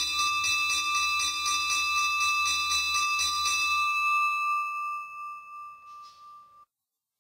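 A bell rung by a pull rope, struck in quick succession about four times a second, then left to ring out and fade. The sound cuts off abruptly near the end.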